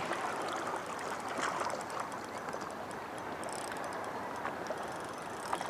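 Water washing and lapping gently, a steady even wash, with faint light ticks over it.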